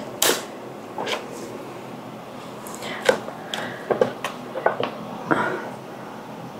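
A spatula knocking and scraping against a plastic blender pitcher as thick hummus is scraped out into a glass bowl: a string of short, separate knocks and scrapes, most of them bunched from about three seconds in.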